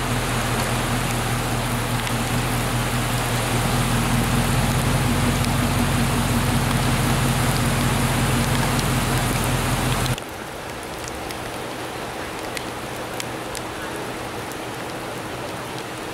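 Rain and running floodwater make a steady hiss, with a low steady hum underneath. About ten seconds in the sound cuts abruptly to quieter steady rain, with scattered drops ticking on wet pavement.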